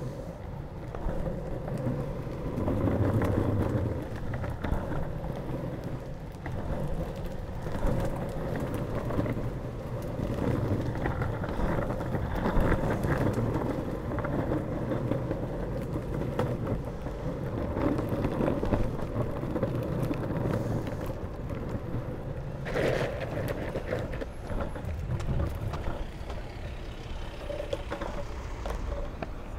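Longboard wheels rolling over a rough, gritty tarmac path: a continuous rumbling grind that swells and eases as the speed changes, with one sharp knock about three-quarters of the way through.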